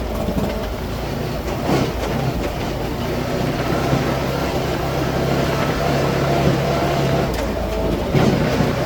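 A motor vehicle's engine running steadily, a constant low hum that dips briefly about seven seconds in before carrying on.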